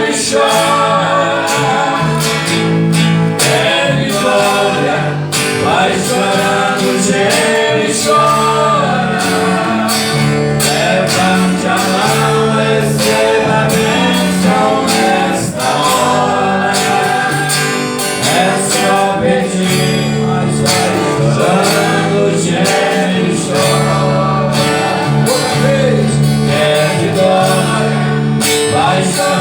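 Gospel praise band playing, with guitar, a steady bass line and singing.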